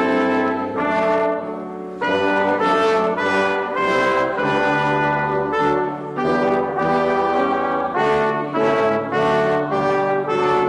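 Brass ensemble of trumpets and trombones playing a tune in sustained chords, with a brief break about two seconds in.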